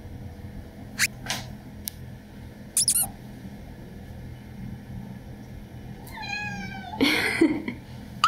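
Ginger tabby kitten crying: a drawn-out meow about six seconds in, then a louder, rougher cry a second later. He cries because he has lost hold of his toy and thinks it is missing. A few light taps come about a second in.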